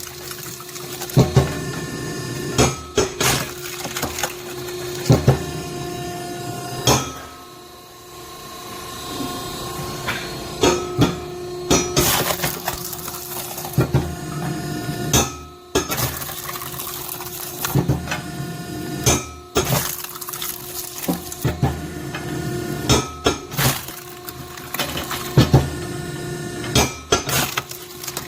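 Hydraulic firewood splitter running with a steady hum while it splits green oak rounds with a cross-shaped wedge: repeated sharp cracks and knocks as the wood splits, and split pieces clattering down. The hum drops briefly about eight seconds in.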